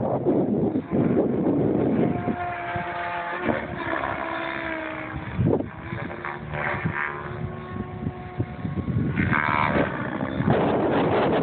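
Radio-controlled helicopter in flight: a motor-and-rotor whine that rises and falls in pitch as it manoeuvres. Wind buffets the microphone near the start and the end.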